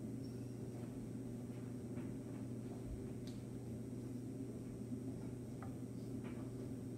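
Steady low hum in a quiet kitchen, with a few faint, light clicks as a knife saws slowly through small tomatoes.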